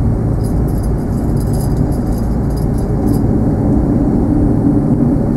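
Steady low rumble of an Airbus A330-200's jet engines around takeoff, with a scatter of light high ticks from about half a second to three seconds in.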